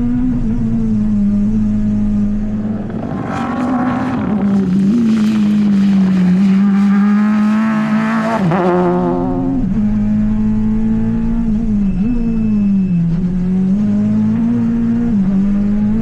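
Citroen C2 Super 1600 rally car's 1.6-litre four-cylinder engine held high in the revs as the car drives past, louder and harsher in the middle as it passes closest. The pitch dips briefly several times, at lifts or gear changes.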